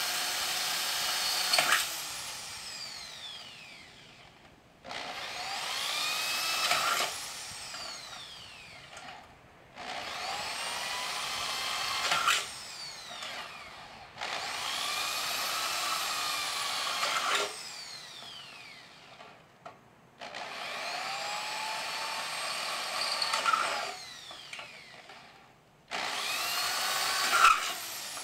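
Corded electric drill boring a series of holes through sheet metal: about six runs of two to three seconds, each with a whine that rises as the motor spins up, a brief sharp screech near the end, and a falling whine as the motor winds down between holes.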